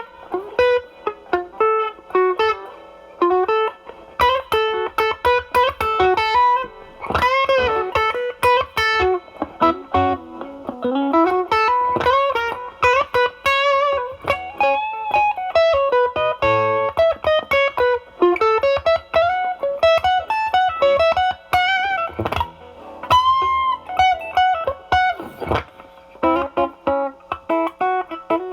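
Fender Stratocaster with alnico single-coil pickups played through an Ibanez Tube Screamer Mini overdrive pedal into a Marshall Valvestate amp on its drive channel. It plays single-note lead lines with string bends and vibrato.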